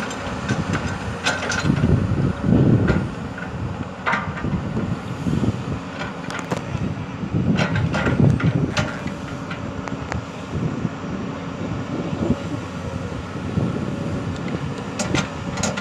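Komatsu PC200 crawler excavator working, its diesel engine running steadily and swelling and easing as the boom and bucket move. Sharp clanks and knocks come now and then, about ten in all, several in a cluster around the middle.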